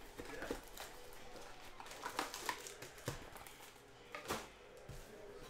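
Faint crinkling of plastic shrink wrap and light taps of a cardboard trading-card box as it is unwrapped and opened, with a scatter of short, sharper rustles and clicks.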